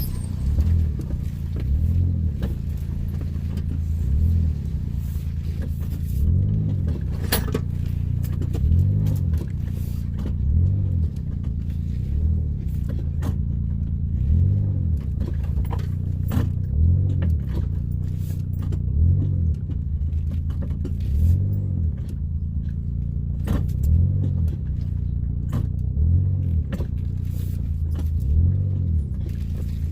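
A vehicle engine running low and steady, swelling regularly about every two seconds, with scattered clicks and rattles.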